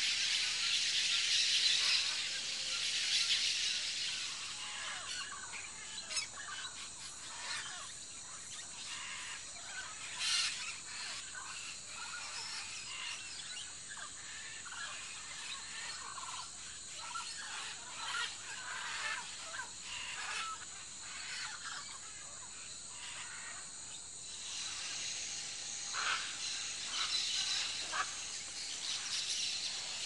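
Many birds giving short calls over a steady hiss of forest ambience, the hiss louder in the first few seconds.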